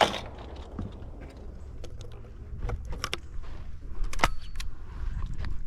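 Scattered metallic clicks and rattles of a shotgun being handled and reloaded between shots, over a low steady rumble.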